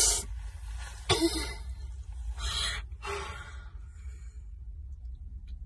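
A woman crying without words: sharp sniffs and shaky, gasping breaths, several in the first three seconds, then quieter, over a steady low hum.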